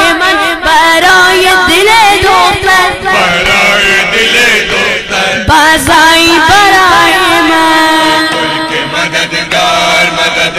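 Voices chanting an Urdu noha, a Shia lament: a wavering, ornamented sung line for the first few seconds, then long held notes.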